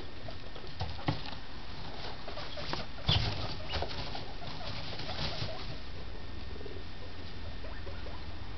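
Guinea pigs shuffling through hay in their cage, with soft rustles and scrabbles, a louder scuffle about three seconds in, and low cooing purrs.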